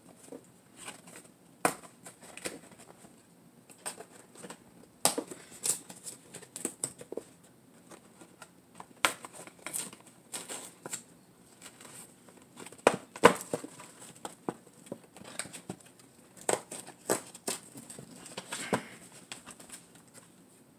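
A cardboard fried-chicken box being opened and handled: irregular rustling, crinkling and tearing of the paperboard flaps, with sharp crackles scattered throughout. The loudest crackle comes about 13 seconds in.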